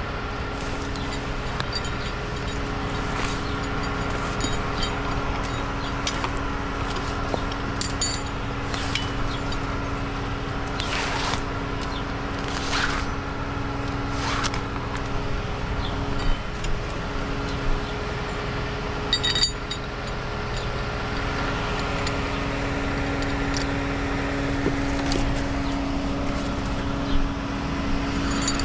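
An engine running steadily at a constant pitch, with a few short knocks and rustling sounds over it.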